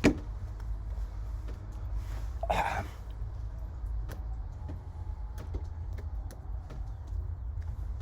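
Weilong GTS speedcube being turned, giving quick, irregular plastic clicks, with a sharp louder click right at the start. A steady low hum runs underneath.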